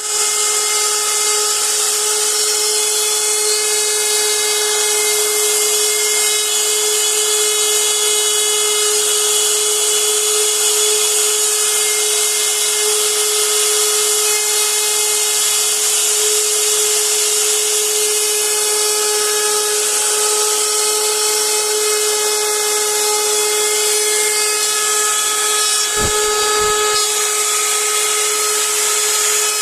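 CNC router spindle running at a steady high speed while milling a wood relief panel: an unchanging whine over the hiss of the bit cutting wood. A brief low bump comes a few seconds before the end.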